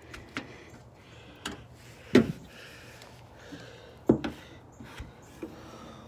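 A few scattered knocks and clicks, the loudest about two seconds in and again about four seconds in, over a faint steady background.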